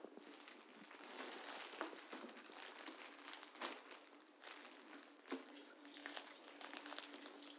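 Faint, irregular crackling and rustling with a steady low hum underneath.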